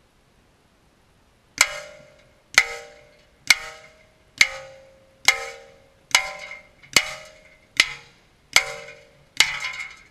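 Bullets striking a hanging steel plate target ten times, a little under a second apart. Each hit is a sharp clang that rings and dies away before the next.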